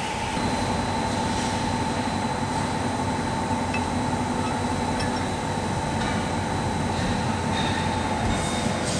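Steady hum of heavy workshop machinery with a thin high whine. The whine steps down slightly in pitch near the end.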